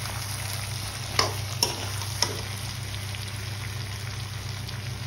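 Pork and potatoes sizzling as they fry in a wok, stirred with a metal ladle that clicks against the pan three times about a second in.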